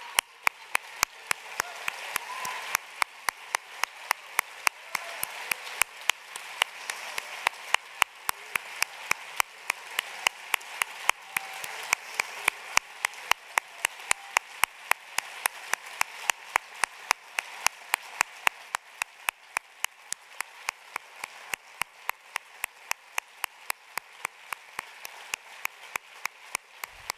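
Audience applauding, with sharp claps falling on a steady, even beat.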